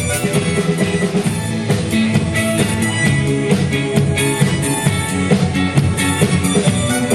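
Band music with guitar and drums, played at a steady beat.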